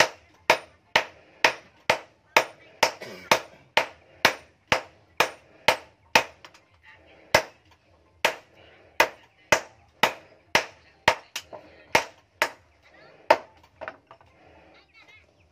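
Hand hammer striking a red-hot steel axe blank on a small steel anvil, sharp ringing blows at about two a second. The blows pause briefly about six seconds in, resume less evenly, and stop near the end.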